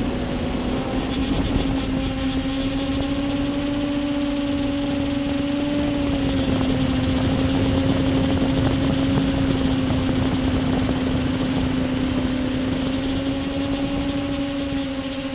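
Multicopter's brushless motors and propellers running steadily: a hum that shifts slightly in pitch, with a thin high whine above it. The uploader suspects the ESCs or motor bearings behind this odd sound and the vibration that comes with it.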